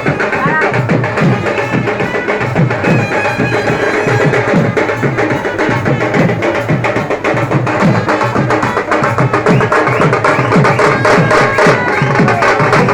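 Loud festival music: fast, steady drumming with a sustained melody over it.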